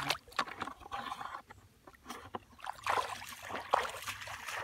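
Feet wading through shallow, muddy water among grass: irregular sloshing and splashing, with a short lull about a second and a half in.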